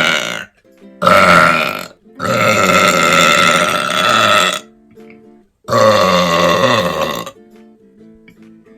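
A woman burping loudly and deliberately. The tail of one burp is followed by three more, the middle one long, about two and a half seconds. Soft background music sits beneath them.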